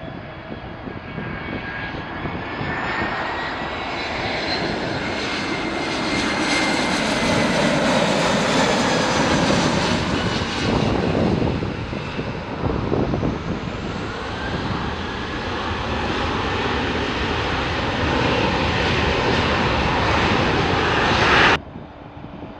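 Twin-engine jet airliner on final approach passing close by: a dense engine noise with a high whine that slowly shifts in pitch, building to its loudest around the middle. It cuts off suddenly near the end.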